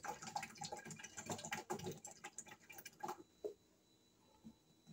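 Faint pattering and gurgling of liquid dish detergent poured from a plastic bottle into a funnel, a quick run of small clicks and splashes that stops about three and a half seconds in.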